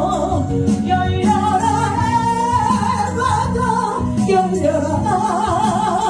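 A woman singing a Korean gospel song with a strong vibrato on long held notes, over instrumental accompaniment.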